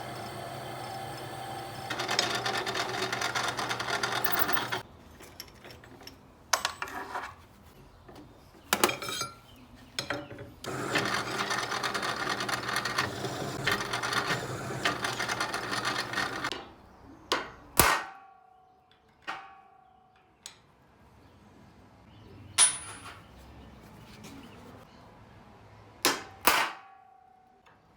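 A workshop power tool running and working steel stock in two long, loud stretches, then several sharp metallic clanks, some ringing briefly like struck steel.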